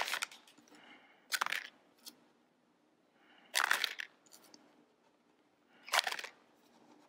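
A small plastic zip bag handled as loose Perler beads are dropped back into it, in three short bursts about two seconds apart.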